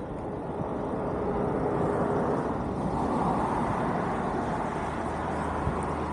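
Vehicle running on a street: a steady rushing noise that swells to its loudest about halfway through and eases off a little, with a faint steady whine for a second or so near the start.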